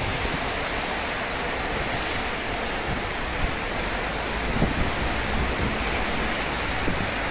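Heavy rain pouring steadily in a windstorm, with a low rumble of wind buffeting the microphone.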